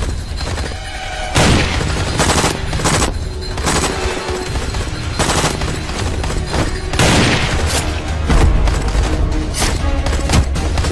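Gunfire, with single shots and short bursts going off again and again, over background action music with a steady low drone.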